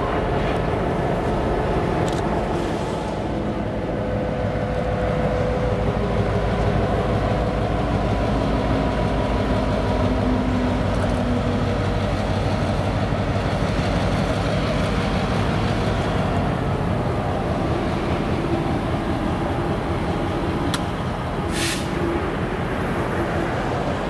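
EMD GP38-2 diesel locomotive's engine working steadily as it moves a cut of covered hoppers, a deep continuous rumble mixed with rail-car wheel noise. A brief high hiss comes near the end.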